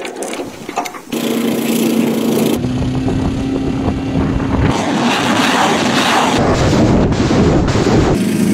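Truck-mounted multiple rocket launcher firing a salvo: a loud, rough rushing noise that starts about a second in and grows denser and rapidly pulsing about halfway, as rockets leave the tubes in quick succession.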